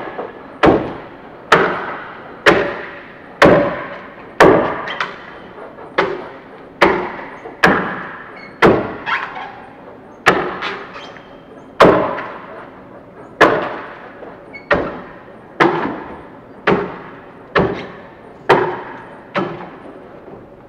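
Axe blade chopping into the side of a log, one sharp strike about every second, each one ringing off briefly in a large hall: a log being hewn by hand.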